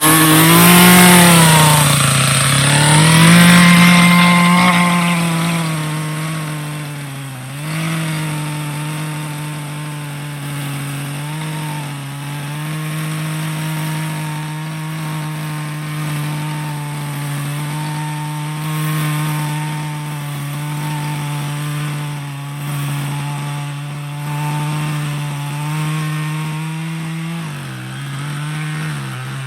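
Two-stroke chainsaw revving up and down a few times, then running steadily at high speed as it cuts into a maple trunk. Its engine speed sags briefly now and then as the chain bites under load.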